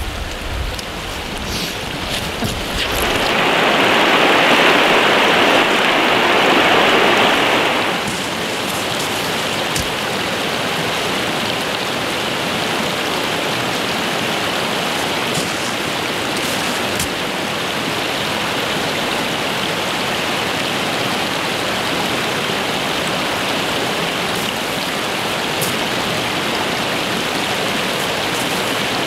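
Shallow creek water running over a rocky riffle: a steady rush, louder for a few seconds near the start.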